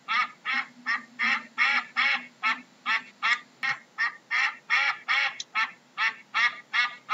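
Duck quacking in a steady run of short calls, about three a second.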